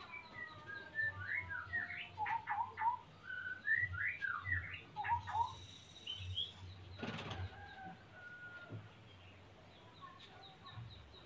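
Male white-rumped shama singing short whistled phrases of quick rising notes, the song of a male in breeding condition. The song is densest in the first half, with one brief sharp sound about seven seconds in.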